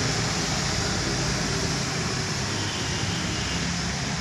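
Steady hiss of falling rain, with a low rumble underneath.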